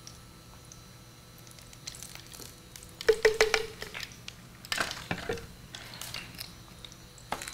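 A spoon clinking and scraping against a glass jar of cow ghee, then the jar knocked down onto the counter: a quick run of sharp clinks with a brief ring about three seconds in, more knocks about two seconds later and a single click near the end.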